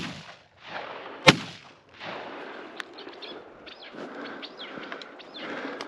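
Two shotgun shots, one right at the start and the second a little over a second later, each a sharp crack. Rustling steps through brush and rock follow.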